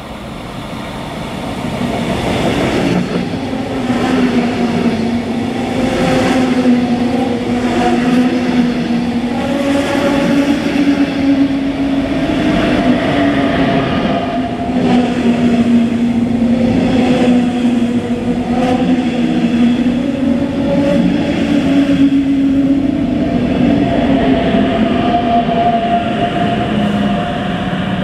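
A train passing through the station at low speed, wheels clacking over the rail joints, with a steady, slightly wavering hum. It builds up over the first couple of seconds and stays loud.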